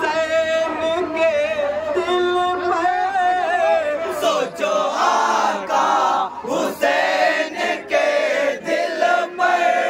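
Men's voices singing a Muharram manqabat, with a group of voices chanting together; the notes are held and quavering.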